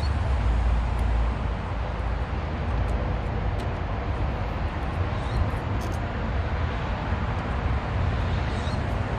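Steady low rumbling noise with a few faint, sharp clicks.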